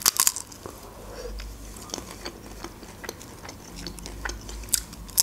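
A person bites into a lavash roll filled with rice, avocado, cream cheese and crab stick and chews it. A sharp crunch of the bite comes at the start, then small crackles and wet mouth sounds as they chew, and a second loud crunch near the end.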